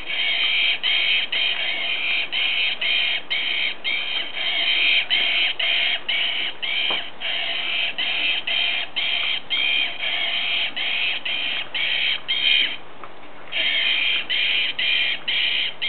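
Squeaker in a plush monkey toy squeaking over and over as a dog chews it, about two to three squeaks a second, with one short pause near the end.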